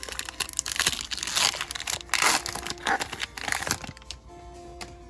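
Foil booster pack wrapper crinkling as it is torn open and handled, in a run of rustles that stops about four seconds in. Background music plays underneath.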